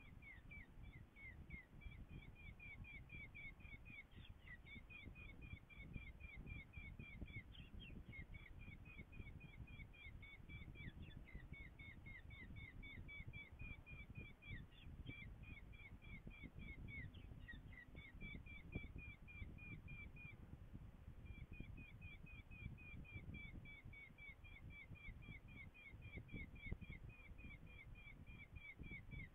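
Falcon calling at the nest: a long run of short, high, downslurred notes, about three or four a second, broken by a few brief pauses, over a faint low rumble of wind. This is typical of a chick begging while the adult tears up prey.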